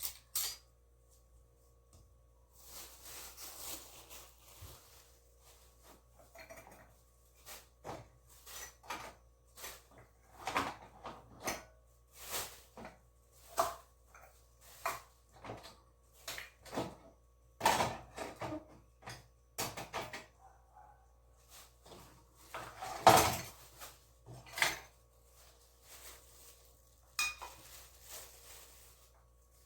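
Dishes, pots and cutlery clinking and knocking as they are set down and moved around, an irregular clatter with one louder knock a little past two-thirds through. A soft hiss comes about three seconds in and again near the end.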